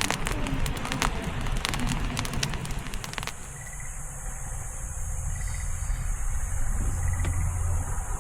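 Wood campfire crackling with frequent sharp pops for about three seconds, then an abrupt switch to a steady low rumble with a faint short chirp every couple of seconds.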